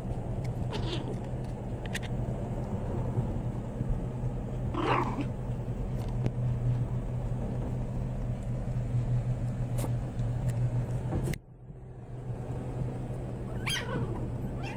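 American Eskimo puppies squealing and yelping a few times, the loudest call about five seconds in, over a steady low hum.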